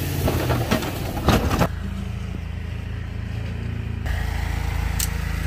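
Pickup truck with a snowplow blade pushing snow, its engine running under noisy scraping with a few sharp knocks. About a second and a half in, this changes abruptly to a steady low engine hum.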